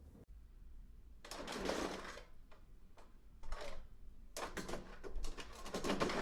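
A falling-object sound effect: three bursts of rattling, scraping clatter, the last and longest full of quick clicks.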